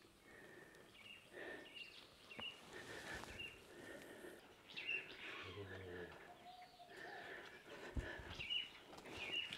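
Birds chirping faintly: short high calls repeated every second or so.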